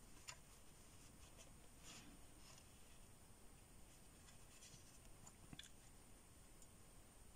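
Near silence with a few faint soft ticks and brushing sounds: a wet watercolour brush stroking across paper.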